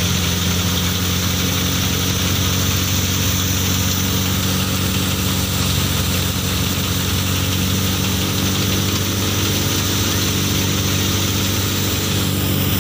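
Tractor-driven thresher machine running steadily: the tractor engine's even drone together with the thresher's drum and blower going as straw is fed through and blown out.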